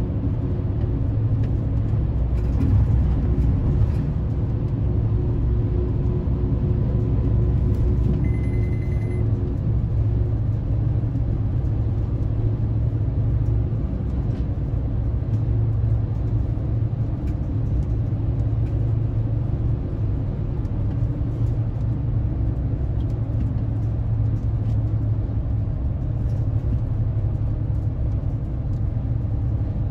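Steady low road and engine rumble heard inside a car moving at highway speed.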